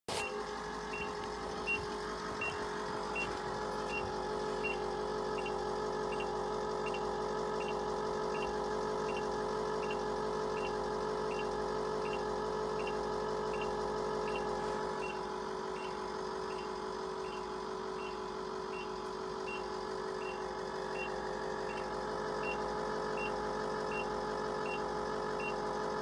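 A truck's engine idling steadily in the cab. Over it, a short high warning beep repeats about every 0.7 seconds, and there are a few knocks in the first few seconds.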